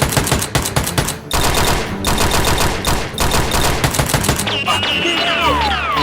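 Rapid automatic gunfire, many shots a second in long bursts. Several falling whistling tones come in near the end.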